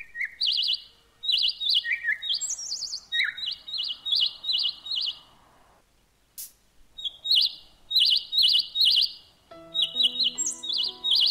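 Songbirds chirping: short, high chirps repeated in quick runs of three or four, with a lull about six seconds in. Soft background music comes in under the chirps near the end.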